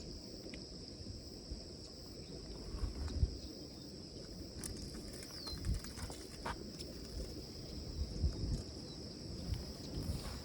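Insects chirring in one steady high-pitched drone, with a short falling bird chirp about five seconds in. Low rumbling and a few soft knocks run beneath.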